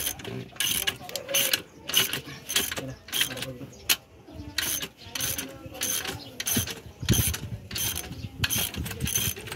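Ratchet wrench clicking in quick repeated strokes, about two to three a second, as it turns the forcing screw of a puller drawing the clutch assembly off a transmission shaft.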